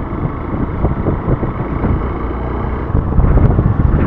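Hero Xpulse 200 motorcycle under way, its engine running beneath a heavy rush of wind buffeting the microphone; the rush grows louder about three seconds in.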